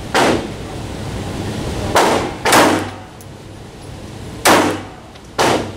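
Five pistol shots from a Ruger LCP .380 pocket pistol, at an uneven pace with a quick pair about two seconds in. Each shot is a sharp crack with a short echo of an indoor range.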